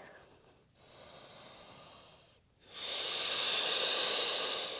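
A woman breathing audibly: a short, faint breath about a second in, then a longer, louder breath from about three seconds in.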